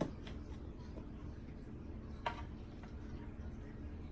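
Eating sounds: a few soft clicks and taps of utensils and mouth, the loudest about two seconds in, over a low steady hum.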